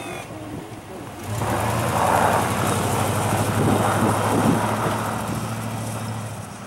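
Snowplow pickup truck pulling away from a snowbank: its engine comes up loudly about a second in and runs steadily with a rushing noise over it, then fades near the end as the truck moves off.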